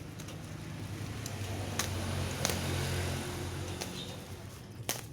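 A low engine hum that swells and fades again, with a few light clicks over it.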